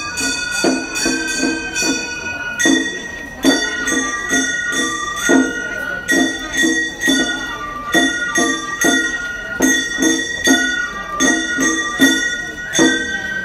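Gion-bayashi festival music: a high bamboo flute playing a melody of long held notes over the rhythmic clanging of small hand-struck kane gongs, about two to three strikes a second.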